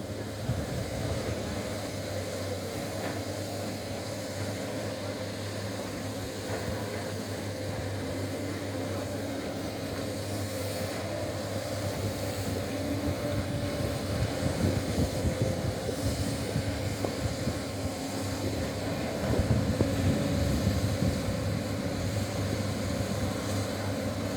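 Sany excavator's diesel engine running steadily, growing louder in the second half with a few surges.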